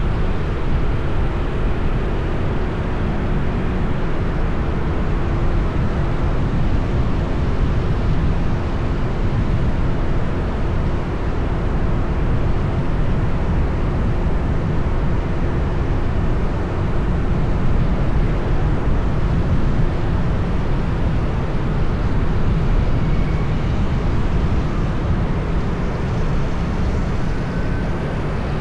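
Steady, loud city traffic and road noise, a continuous low rumble.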